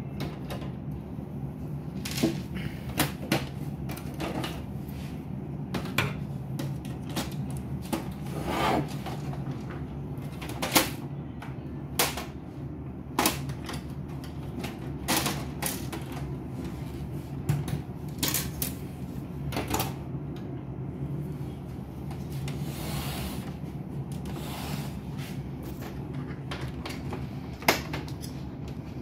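Irregular plastic clicks, knocks and snaps as the covers of an HP LaserJet printer are pried with a screwdriver and handled during disassembly, over a steady low hum.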